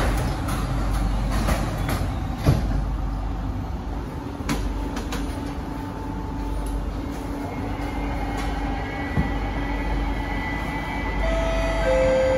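Steady running hum inside an SMRT C151B metro car, with a few sharp knocks as the doors shut near the start. Near the end, traction-motor tones come in as the train begins to move off.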